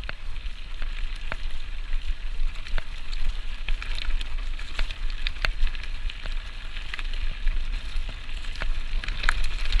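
Mountain bike riding fast down a dirt trail: the tyres crackle over dirt and loose stones, with frequent sharp clicks and rattles from the bike, over a low rumble of wind on the microphone.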